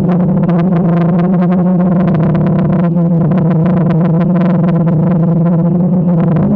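Electronic synthesizer music: a sustained low chord with a fast, steady pulsing rhythm over it.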